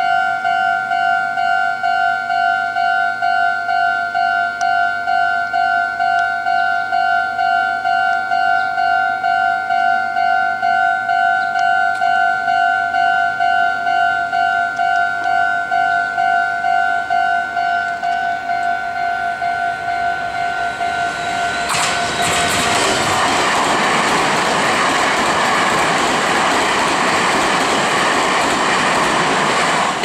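A Japanese level-crossing alarm rings from the loudspeaker on the signal post in a steady, evenly repeating electronic two-tone ding. About 22 s in, an express of two coupled Meitetsu 3300 series electric train sets passes at speed, and its loud rushing and wheel clatter on the rails drown out the alarm.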